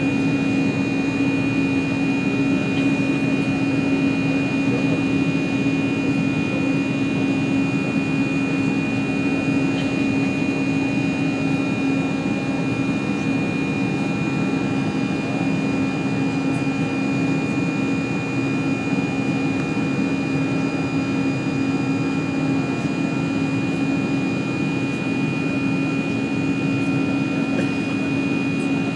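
Airbus A319 cabin noise during the climb after takeoff: the jet engines and rushing air make a steady, even noise, with a constant low hum and a thin high whine over it.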